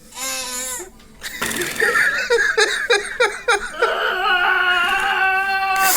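Baby vocalizing in a high voice: a short wavering cry, then a string of quick pulsed sounds at about four a second, then one long held wail that stops suddenly near the end.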